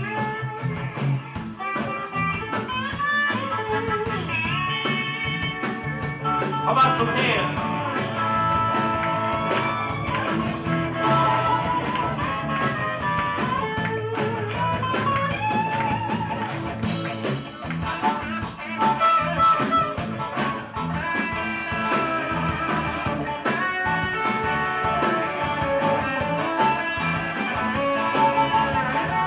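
Live blues-rock band playing an instrumental passage: electric guitars and bass with harmonica and keyboard over a steady drum beat.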